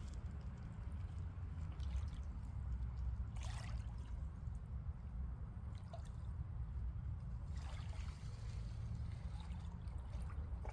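Water sloshing and splashing over a steady low rumble, with two louder splashes, a few seconds in and again near the end.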